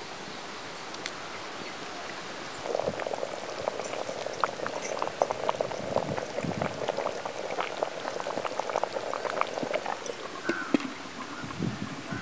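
Pot of spicy fish curry boiling hard, its surface popping with a dense crackle of bursting bubbles that starts about three seconds in.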